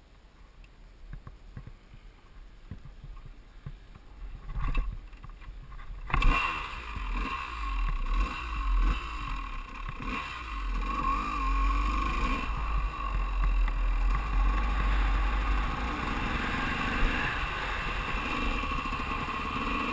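Two-stroke engine of a 2001 KTM 200 EXC dirt bike: a couple of thumps about four and a half seconds in, then from about six seconds in the engine runs and revs as the bike is ridden, with wind buffeting the microphone.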